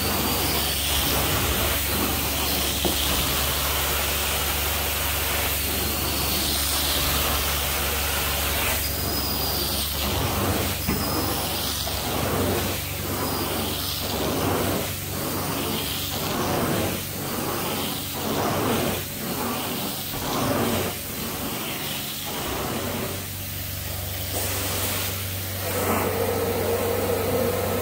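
Carpet-cleaning extraction wand hissing with spray and suction over a steady machine hum, with rhythmic swells about once a second through the middle as the wand is stroked back and forth across the carpet. A steady whine comes in near the end.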